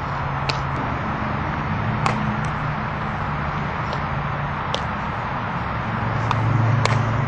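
Outdoor background noise with a low steady hum, broken about seven times by short, sharp clicks: the contacts of softball infield drills, with balls hit and taken into the glove.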